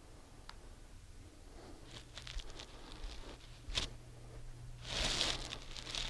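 Rustling and handling noises with scattered clicks, one sharp click just before four seconds in and the loudest rustle about five seconds in, over a low steady hum.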